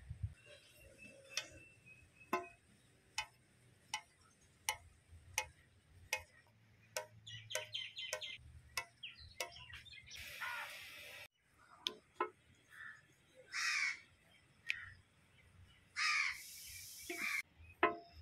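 A kitchen knife chopping a rope of poori dough into pieces on a stone slab: a sharp tap about every 0.7 seconds for the first half. Birds call around it, and several louder, harsh calls come in the second half.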